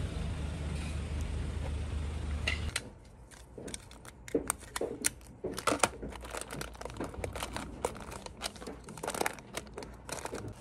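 Steady low outdoor noise for about the first three seconds. Then crinkling and rustling of thin plastic snack-cake wrappers as the individually packed cakes are handled and stacked, in many short sharp crackles.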